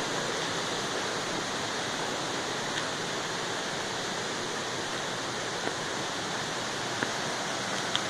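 Steady rushing of the Kuang Si waterfall's cascading turquoise water.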